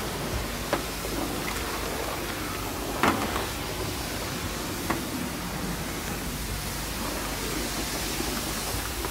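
Steady rushing hiss of running self-serve car wash spray equipment, with a few sharp taps, the loudest about three seconds in.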